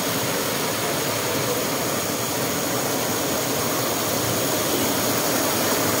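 Steady rushing roar of a tiered waterfall cascading into a pool.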